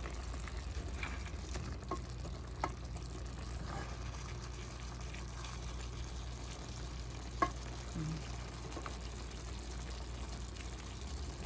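Chicken, oyster mushrooms and spinach sizzling softly in a stainless steel pot as a wooden spoon stirs them, with a few light knocks of the spoon against the pot, the sharpest about seven seconds in. A steady low hum runs underneath.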